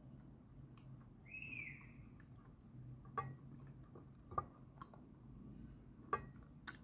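Quiet chewing of dry, crunchy lumps of edible clay or chalk, with a few sharp crunches or clicks, the loudest about three seconds in and about four and a half seconds in, and two more near the end.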